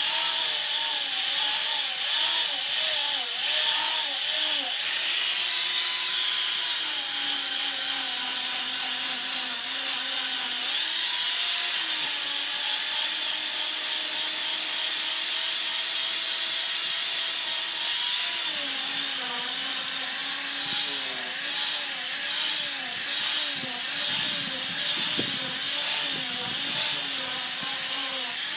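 An electric power tool runs continuously, its motor pitch sagging and recovering again and again over a steady hiss. It cuts in abruptly at the start.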